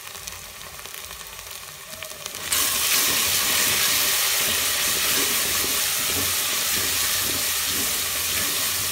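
Onions and garlic sizzling as they fry in oil in a pot while being stirred with a wooden spoon. The sizzle jumps suddenly much louder about two and a half seconds in and stays loud.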